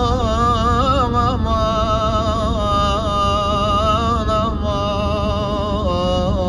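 Turkish song with a long melodic line wavering in pitch, over a steady low rumble.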